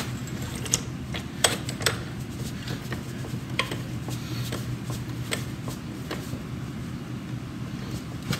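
Scattered light clicks and knocks as a heavy solid-rubber forklift drive wheel is walked forward on a jack toward its hub, over a steady low hum.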